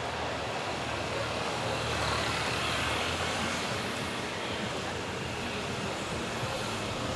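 A motor vehicle passing on a wet street, its tyres hissing over the rain-soaked road; the sound swells to a peak about two to three seconds in and then fades back into the traffic noise.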